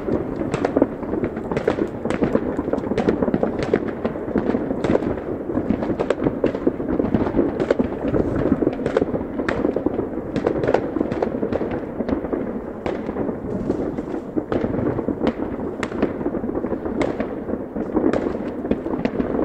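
Many fireworks going off at once: a continuous din of bangs and crackling, with sharper cracks standing out every second or so.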